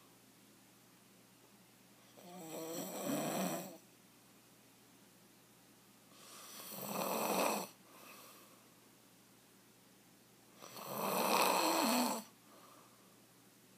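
A man snoring loudly in his sleep: three long snores about four seconds apart, each lasting about a second and a half, with quiet between them.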